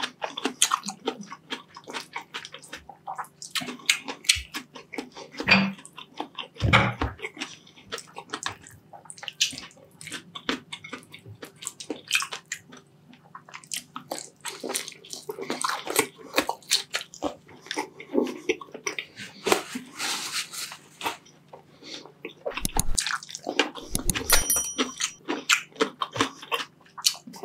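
Close-miked wet chewing and lip smacking of a person eating saucy braised beef short ribs and rice by hand: a dense, irregular run of sticky mouth clicks and smacks.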